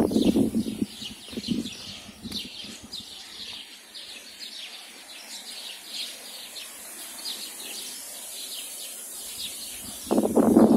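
Small birds chirping, a steady string of short falling chirps about three a second. A loud rustling noise fills the first second or so and returns near the end, drowning the birds.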